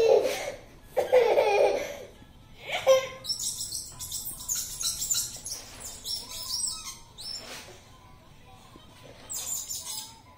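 Foam toy blocks squeaking in short, irregular bursts as they are pushed and rubbed across a glass tabletop. A laugh-like voice sounds twice in the first two seconds.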